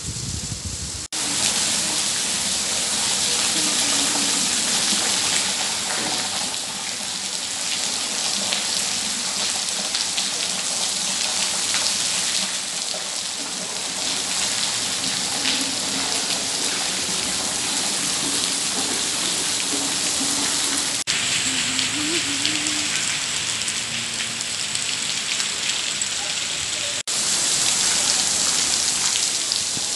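Heavy rain pouring down in a steady, dense hiss, broken off for an instant three times.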